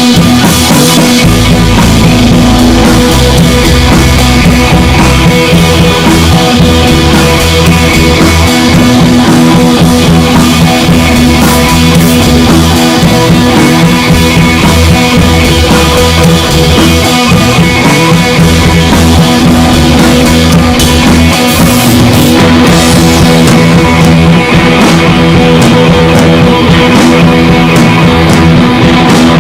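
Background rock music with electric guitar and drums, loud and steady.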